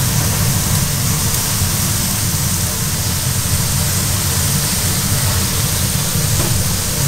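Cubes of beef sizzling on a hot iron griddle, a steady hiss, over a constant low hum.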